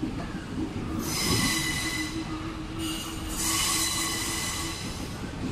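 Wheels of slow-moving Indian Railways chair-car coaches squealing on the rails in two high-pitched bouts, the first about a second in and the second just after the middle, over the low rumble of the coaches rolling past.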